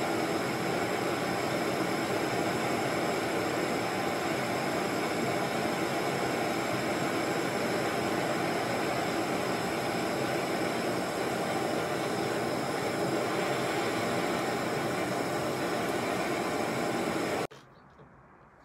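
Gas blowtorch flame hissing steadily as it burns against a banana skin, stopping abruptly near the end.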